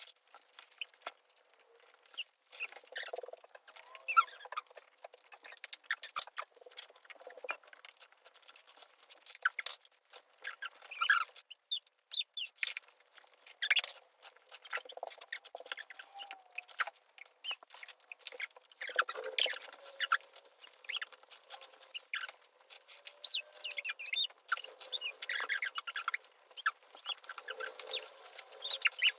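Close-up eating sounds: irregular chewing and mouth clicks, with brief faint squeaky sounds scattered throughout.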